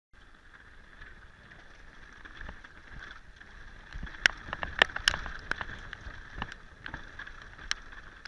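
Mountain bike rolling fast down a dirt forest trail: steady rushing tyre and air noise with a low rumble. The bike gives sharp knocks and rattles over bumps, several close together about four to five seconds in and one more near the end.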